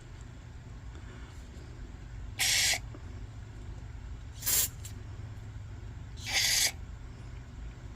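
Three short hissing sprays, about two seconds apart, over a low steady hum.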